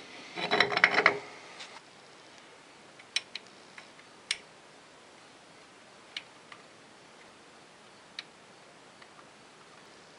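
A metal wheel spacer clanks and rattles against the steel hub and wheel studs as it is slid onto them, about a second in. After that come a few scattered small metallic clicks as the lug nuts are fitted into its recessed holes by hand.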